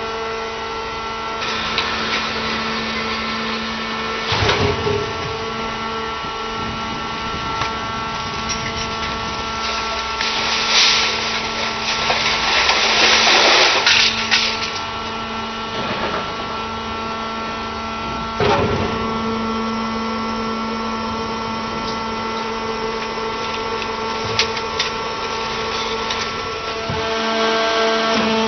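Mobile scrap baling press running, its hydraulic drive giving a steady drone, with clattering and crunching of light sheet-metal scrap. Several sharp knocks come through, and the loudest crunching is in the middle, as the hydraulic grab drops a load of scrap into the press chamber.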